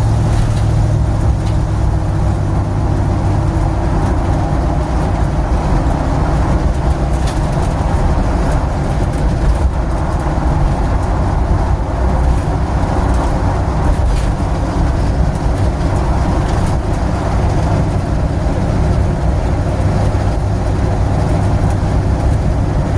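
Loud, steady engine drone and road noise inside the cabin of an old vehicle with bare welded floor pans, no door seals and holes in the body, while it cruises at a steady speed.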